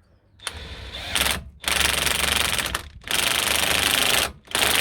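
Impact gun hammering in several trigger bursts as it runs down the nylock nut on a new track rod end's ball-joint stud.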